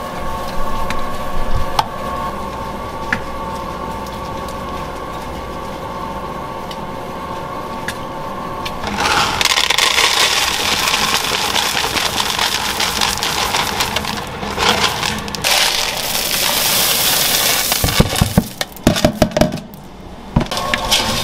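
A large bakery dough mixer runs with a steady hum as its hook kneads chocolate bread dough. About nine seconds in, chocolate chips are poured from a bag into a plastic tub with a loud, dense rattle lasting several seconds, followed by a few sharp knocks. The mixer hum returns near the end.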